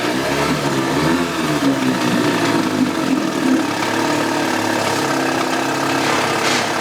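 Evinrude Deluxe 4 two-stroke outboard motor running at idle, a little uneven in pitch for the first few seconds and then steady; it is running after its carburettor's low-speed jet passage was cleaned out with carb cleaner and compressed air.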